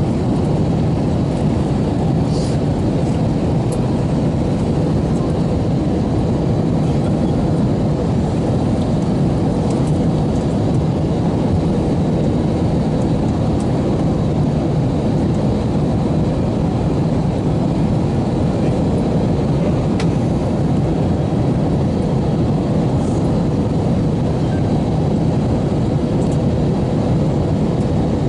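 Steady cabin noise inside an Airbus A321 airliner on approach with flaps extended: a deep, even rush of engines and airflow, with a faint steady hum.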